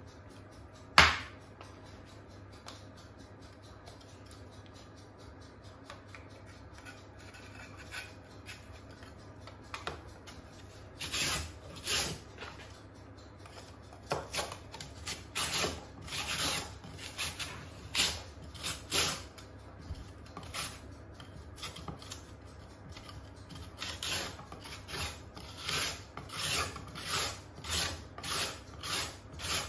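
Purple carrot grated by hand on a flat stainless steel grater against a wooden board: short rasping strokes, about one a second, starting about ten seconds in and coming faster near the end. A single sharp knock about a second in.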